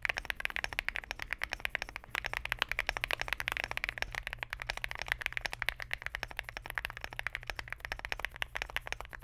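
Fast, continuous typing on a Lucky65 v2 mechanical keyboard with an FR4 plate and thocky Keygeek linear switches: a dense stream of keystrokes bottoming out and returning.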